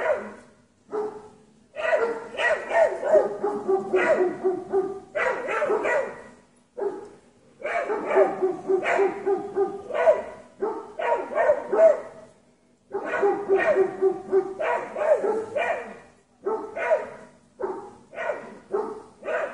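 Dogs barking rapidly at a cougar they are holding off, in long runs of barks broken by brief pauses.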